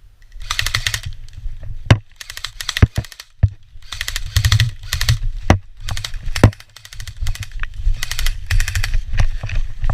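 Airsoft guns firing on full auto: a string of short bursts of very rapid clicks, with a few single sharp snaps between them and a low rumble underneath.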